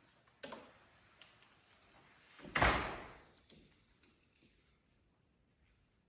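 A few short clicks and clinks, with one louder clatter about two and a half seconds in, then smaller knocks before it goes quiet.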